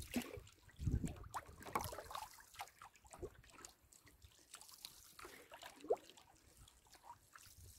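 Faint water sounds from a canoe paddle: soft splashes, drips and trickling. A short squeak comes about two-thirds through.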